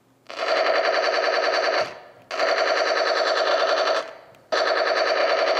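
Cassette player built into a homemade half-scale M2 toy machine gun, set off by a doorbell button, playing a recorded machine-gun sound through its small speaker. There are three bursts of rapid fire, each about one and a half to two seconds, with short gaps between, and the last one runs on.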